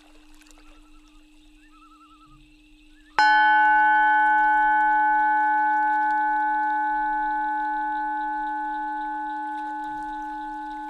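A Tibetan singing bowl tuned to 852 Hz is struck once about three seconds in. It rings with several overtones and fades slowly over a steady low drone. Faint warbling chirps come before the strike.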